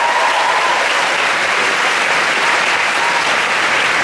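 Large audience applauding steadily, with a cheer fading out near the start.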